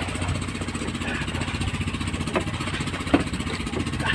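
A small engine running steadily, with a sharp knock a little after three seconds in.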